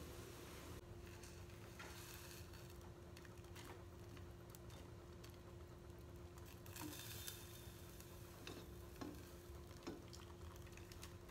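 Faint sounds of instant noodles being lifted from a pot of boiling water with a plastic slotted spoon: water bubbling and dripping back into the pot, with a few light clicks of the spoon against the pot, over a low steady hum.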